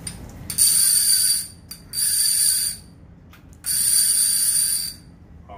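Avet fishing reel worked by hand, its ratchet clicker giving three high-pitched buzzing runs of about a second each.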